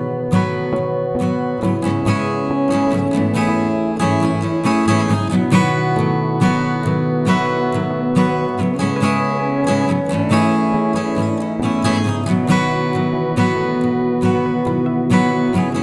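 Live band music at a steady level, with strummed plucked strings standing out over sustained notes.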